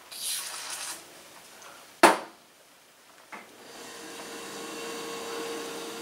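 A short spray hiss of lubricant being squirted into the throttle cable casing, then a sharp click about two seconds in. From about four seconds a small motor starts running with a steady hum.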